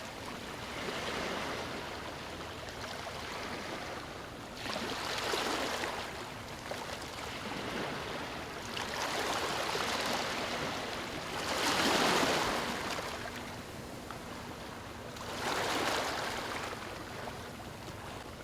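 Sea waves breaking and washing in, the rush swelling and falling away every few seconds, with the biggest wave about two-thirds of the way through.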